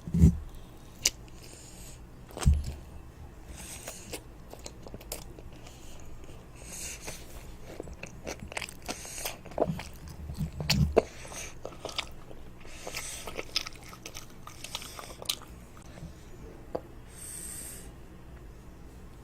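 A child eating toast close to the microphone: crisp crunching bites and chewing, with scattered crackles throughout and a few dull thumps, the loudest at the very start and around a third and halfway through.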